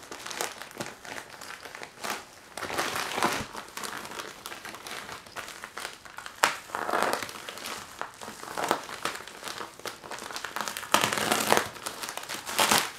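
Plastic poly mailer crinkling and rustling as it is handled and slit open with a craft knife, with scratchy strokes and scattered sharp clicks. A louder stretch of crinkling comes near the end.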